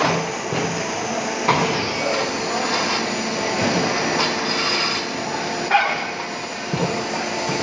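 Dry ice block-making machinery running, a steady mechanical noise with two sharp knocks, about a second and a half in and again near six seconds.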